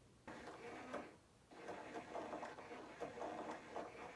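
Faint mechanical whirring and rattling in two stretches, a short one and then a longer one, like a small motor running.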